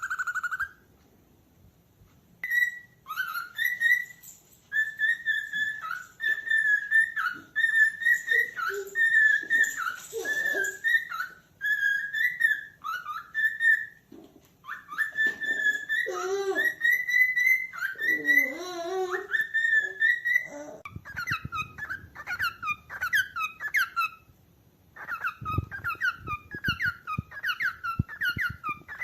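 Cockatiel whistling its song: a run of clear whistled phrases, with lower warbling glides mixed in, then about 8 s from the end it switches to quick repeated chirps, about three a second.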